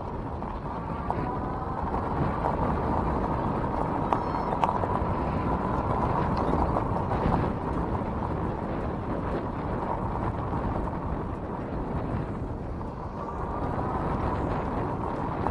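Electric bike riding over gravel: tyres crunching on loose stones, with a faint motor whine near the top of the noise that rises and falls a little.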